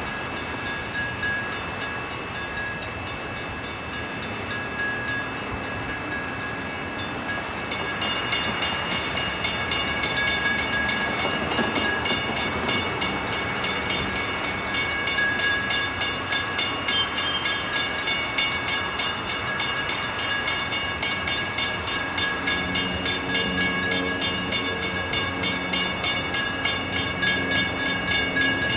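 Railroad grade-crossing warning bells ringing rapidly and steadily, growing louder and fuller about eight seconds in as a further bell joins: the crossing is warning of an approaching train. Near the end a lower steady sound of the oncoming train comes in underneath.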